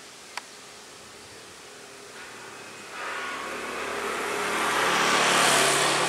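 An engine grows steadily louder from about three seconds in, peaking near the end, over a steady hiss. A single sharp click sounds about half a second in.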